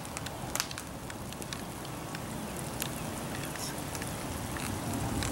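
Steady rain falling, with scattered drops ticking close by. A hiss grows louder near the end as two bicycles ride up on the wet pavement.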